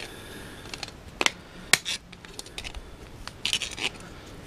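Light clicks and clinks of hand tools and small parts being handled, with two sharper clicks a little over a second in and a brief cluster of small rattles near the end.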